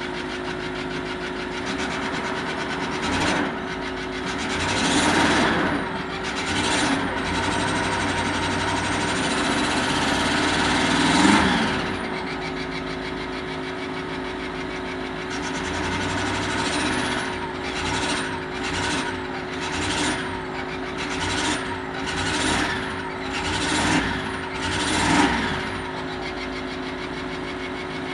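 Range Rover Sport 3.6-litre TDV8 diesel engine idling steadily and revved briefly again and again, each rev rising and falling, a few spread out at first and then about one a second in quick succession. It is recorded for an unexplained strange noise.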